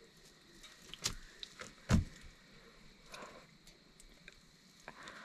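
A few faint, scattered knocks and ticks, with one louder thud about two seconds in.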